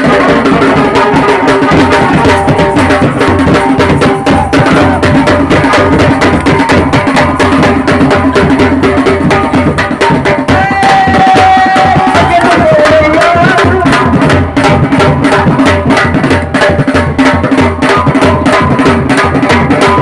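Wedding-band drums beaten with sticks in a fast, loud, steady rhythm for dancing. About halfway through, a high held note sounds over the drumming and then bends downward.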